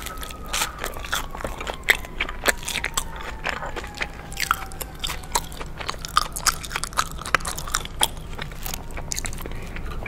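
Close-miked biting and chewing of a toasted grilled cheese sandwich, the crisp crust crunching in quick, irregular crackles.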